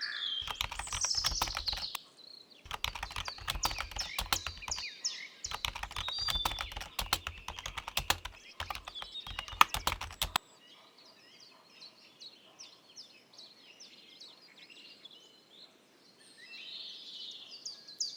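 Typing on a computer keyboard in several bursts of quick keystrokes over birds chirping. The typing stops about ten seconds in, leaving only the faint birdsong.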